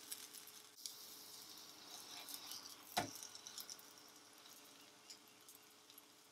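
Potato and egg pancake frying in a nonstick pan: faint sizzling with small crackles, fading slowly, and one sharp tap about three seconds in.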